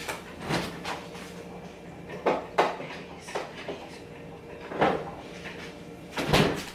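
Refrigerator and kitchen doors being opened and shut: a scattered series of knocks and clunks, the loudest near the end.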